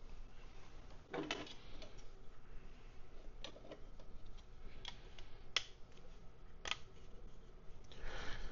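Small 3D-printed plastic model parts handled and pressed together by hand without glue: a brief faint scrape about a second in, then a few irregular light clicks and taps.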